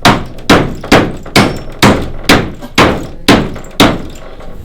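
Hand hammer driving a nail into a 2x4 wood spacer, nine steady blows about two a second, each a sharp knock with a short ring.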